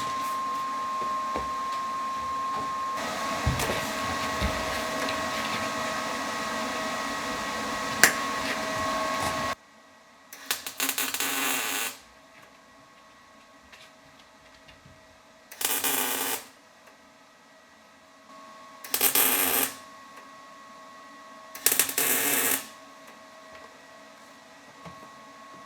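Welding torch making four separate short tack welds on sheet steel, each a burst of hiss lasting about a second. Before them, a steady hiss with a thin whine runs for about ten seconds and cuts off suddenly.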